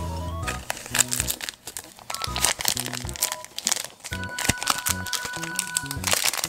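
Crinkling of a shiny Pokémon card booster-pack wrapper as it is turned over and handled, in a run of sharp crackles over background music.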